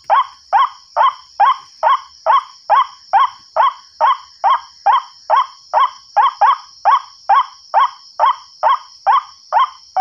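Recorded white-breasted waterhen (ruak-ruak) call played on a loop through a small horn loudspeaker: a harsh falling note repeated evenly about twice a second, over a steady high hiss.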